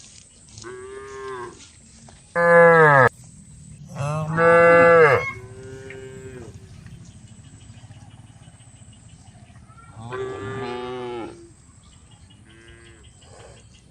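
Several cows mooing in turn: about six drawn-out moos of different pitches, the two loudest a few seconds in and fainter ones later.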